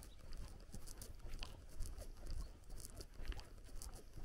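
Footsteps on a dirt footpath, about two steps a second, each a soft thud with a little crunch.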